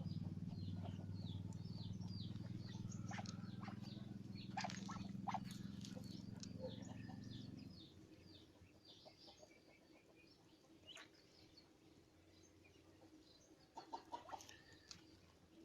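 Faint, repeated short high-pitched chirps from small birds. Under them a steady low hum runs and cuts off suddenly about eight seconds in, leaving only the chirps and a few clicks.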